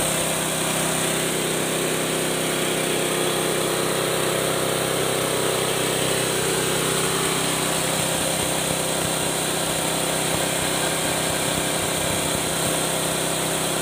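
Mini rice polishing machine (kebi) running steadily, a constant mechanical hum with a high whine over it.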